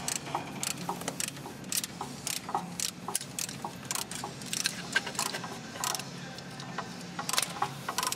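Irregular metallic clicks and clinks of hands and tools working metal parts loose on a diesel engine's intake.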